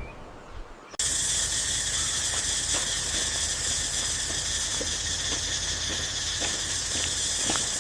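A steady high hissing ambience, with a low hum beneath it, starts abruptly about a second in. A few faint clicks are scattered through it.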